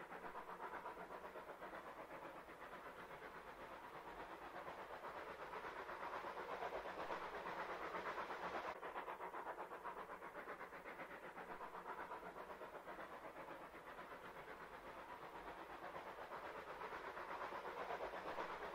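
Dapol 7mm O gauge Terrier model locomotive running under power with a freight train: a steady whirr from its motor and gears over fast clicking of the wheels on the track, swelling and fading gently in loudness.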